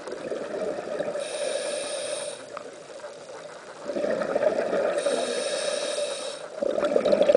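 Scuba diver breathing through a regulator: a hissing inhalation through the demand valve, then a rush of exhaled bubbles, a second hissing inhalation and another rush of bubbles near the end.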